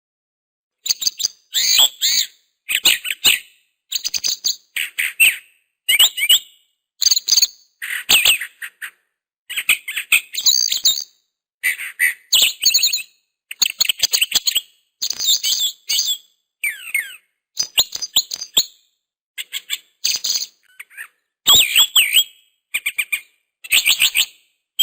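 A songbird chirping in short bursts of quick, high notes, roughly one burst a second, with dead silence between them.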